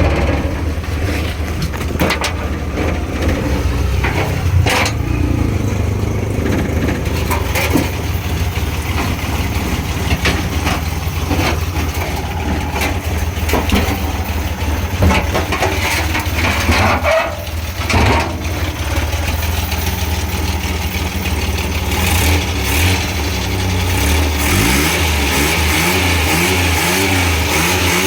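Multicab mini truck's 12-valve engine running at a steady idle, with a few knocks along the way. Near the end the engine revs up. The engine has a hard-starting problem.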